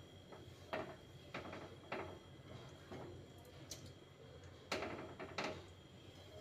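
Silicone spatula gently stirring chhena rolls in thickened milk in a non-stick kadai for rasmalai: faint soft scrapes and swishes against the pan, about one a second.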